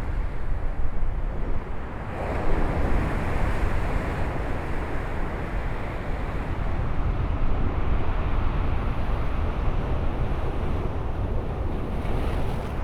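Gale-force wind buffeting the microphone with a heavy low rumble, over the steady rush of a rough, foaming sea breaking on the beach. The surf noise swells louder about two seconds in.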